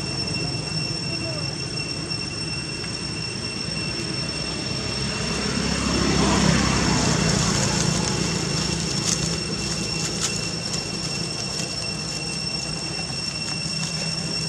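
Steady outdoor background drone with two thin, high, steady whining tones over it, swelling louder about six to eight seconds in and easing off again, with a few faint crackles about nine to ten seconds in.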